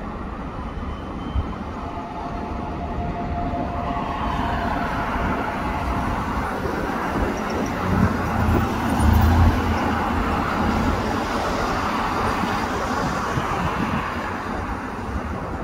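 Hokuso Railway 7300 series electric commuter train pulling out of a station. Its running noise swells to a peak about halfway through, with a low rumble, then eases off.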